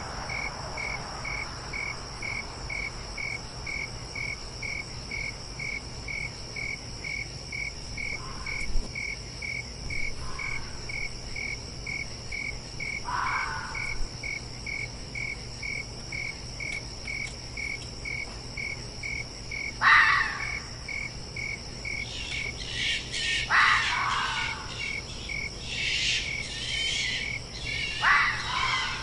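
Crickets chirping steadily, about two chirps a second, over a higher steady insect hum. A fox calls in short, rough bursts over them: faint at first, then louder and more frequent in the last ten seconds, the loudest call about twenty seconds in.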